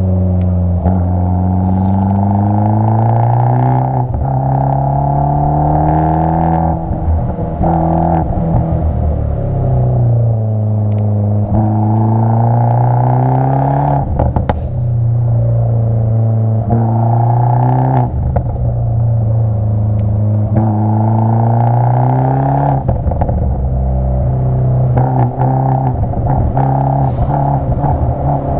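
Abarth 500's turbocharged 1.4-litre four-cylinder engine revving up and easing off between corners, its pitch climbing and dropping again every few seconds, with a few short sharp clicks.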